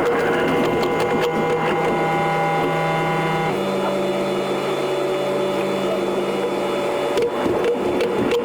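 The running sound of an E721 series electric train, played at ten times speed, so that it becomes a dense, fast machine-like buzz. Several steady tones run through it and shift in pitch about a third of the way in.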